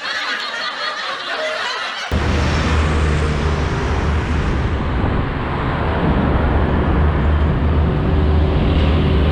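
Laughter for about two seconds, then an abrupt change to the steady, deep rumble of a large vehicle's engine running.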